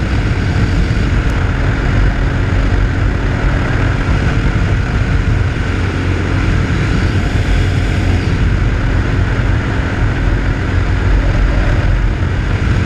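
Steady wind rushing and buffeting over the microphone at road speed, with the steady drone of an RPS Hawk 250's single-cylinder engine cruising at an even speed beneath it.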